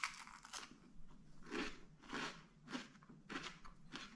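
A bite into a sesame crispbread spread with cream cheese, then crunchy chewing at about two crunches a second.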